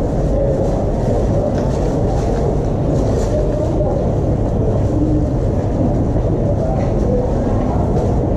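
Steady low rumble of background noise with an indistinct murmur of voices, the ambience of a busy hospital waiting area.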